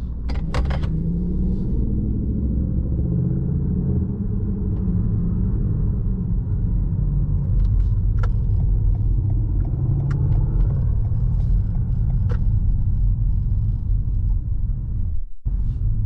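Low, steady rumble of a car's engine and road noise heard from inside the cabin while driving, the engine note rising and falling a little, with a few light clicks.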